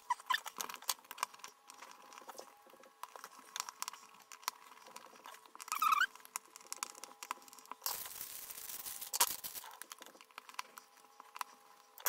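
Faint clicks, taps and scrapes of a GFCI receptacle being pushed into a metal wall box and screwed in with a screwdriver. There is a short squeak about six seconds in and a second or so of scraping noise around eight seconds in.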